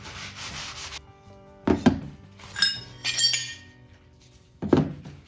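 A rag wiping a bare steel bracket, then dull thuds as the brackets are set down on a cardboard box, with a few ringing metal clinks in between. Background music plays underneath.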